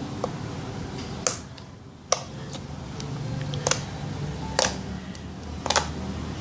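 Thick creamy slime being pressed and pulled, giving sharp pops and clicks about once a second, two of them close together near the end.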